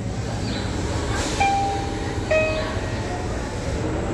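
Tobu Railway platform train-approach chime repeating: a high electronic note, then a lower one about a second later, ringing over the low rumble of an arriving train.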